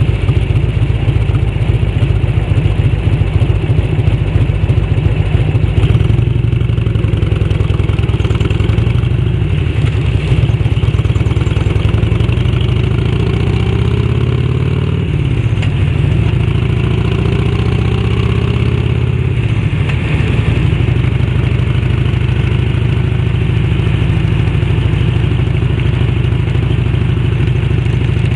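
A 1991 Harley-Davidson Electra Glide's 1340 cc Evolution V-twin running while the sidecar rig is ridden, its exhaust going out through a freshly fitted aftermarket fish-tail silencer. The engine pitch climbs and drops twice in the middle, then holds steady.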